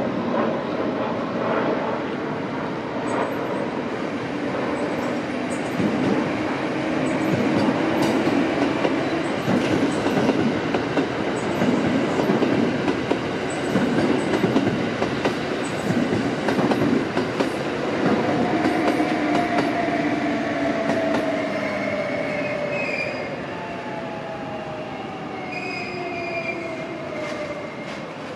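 Kintetsu electric commuter train running past on the elevated track, its wheels rumbling with rapid clacks over the rail joints. In the latter part a falling whine as a train slows for the station, with high-pitched wheel squeals.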